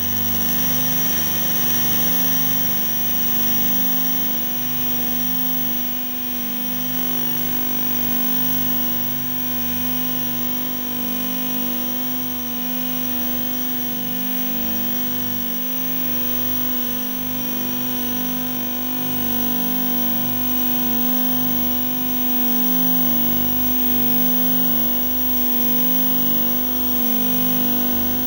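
Experimental electronic noise: a dense, steady drone of many held tones, the loudest a low hum, with hiss over the top and a flickering low buzz underneath.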